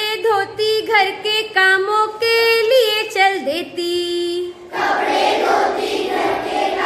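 A woman's voice sings a line of a Hindi poem solo, then from about two-thirds of the way through a class of children sings the line back together in chorus.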